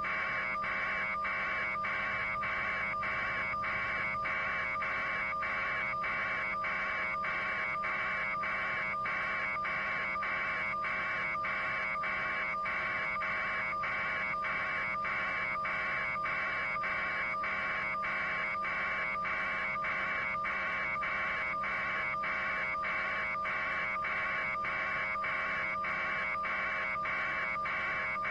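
A steady buzzing noise that pulses evenly about two to three times a second, with faint steady hums beneath it and no change throughout.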